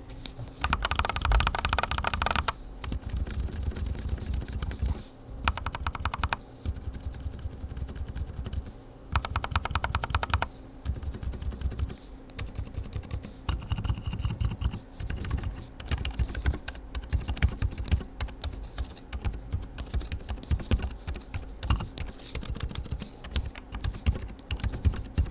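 Typing on an FL Esports GP75 mechanical keyboard fitted with OUTEMU Silent Peach silent switches: a steady stream of muted keystrokes, broken by a few short runs of very fast key presses.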